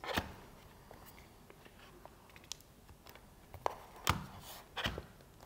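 Two laptops handled on a glass desk, with the lid of a One Netbook A1 mini laptop swung open: soft rubbing and a few light clicks and knocks, the clearest about four to five seconds in.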